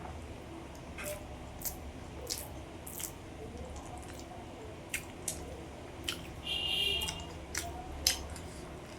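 Close-miked eating: wet mouth clicks and lip smacks of chewing, about one a second, over a steady low hum. There is a brief high-pitched tone about six and a half seconds in.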